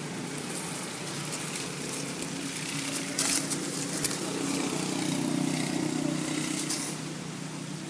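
Engine hum of road traffic going by, steady and low, growing louder from about halfway and easing off near the end, with two sharp clicks around the middle.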